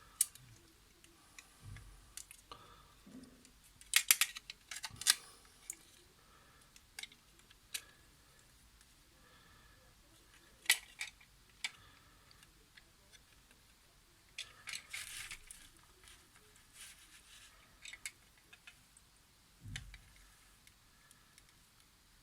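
Scattered sharp clicks and light rattles of a remote control's plastic case and circuit board being handled and fitted back together. The loudest clicks come a few seconds in, again about halfway, and in a short cluster a little later.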